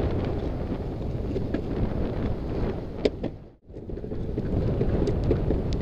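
Wind buffeting the microphone over the rumble of longboard wheels rolling on an asphalt path, with scattered short clicks. The sound dips out briefly a little past halfway and then comes back.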